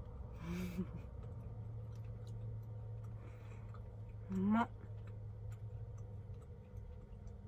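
A woman eating, giving a short closed-mouth 'mm' about half a second in and a louder 'mmm' that rises in pitch about four seconds in, between bites, with faint small clicks of eating and a steady low hum underneath.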